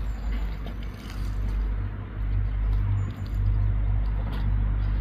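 Wind buffeting the microphone: a steady low rumble that swells and fades.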